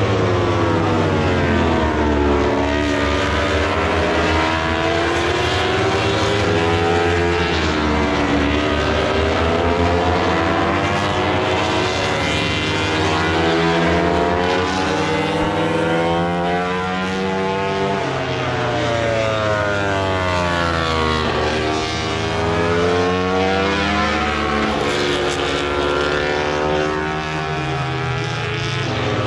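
Racing motorcycle engines, several at once, running at high revs on the circuit. Their pitch climbs and falls again and again as the bikes accelerate and slow, with the engine notes overlapping.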